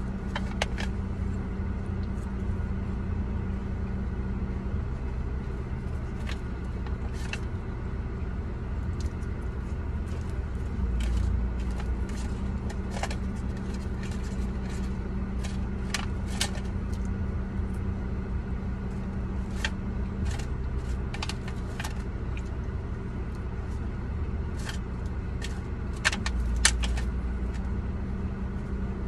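Steady low hum of a car idling, heard inside the cabin, with scattered sharp clicks and crinkles of a wooden fork against an aluminium foil food tray; a cluster of louder clicks comes near the end.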